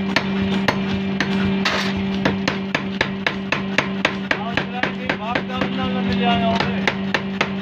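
A 20 kg mechanical power hammer beating hot steel into a small axe head: a quick, even run of sharp metal blows, about three to four a second, over the steady hum of the hammer's electric motor.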